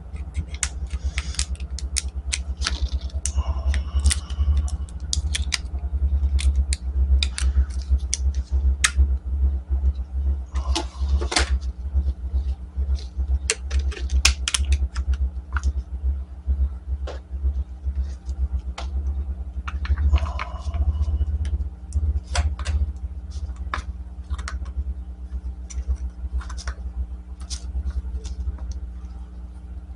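Irregular clicks, taps and rattles of small parts and tools being handled at close range, over a steady low rumble with a faint hum.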